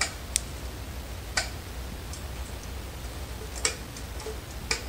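Bass clarinet's upper and lower joints being wiggled apart, with about five sharp, irregular clicks of the metal keys and joint rings.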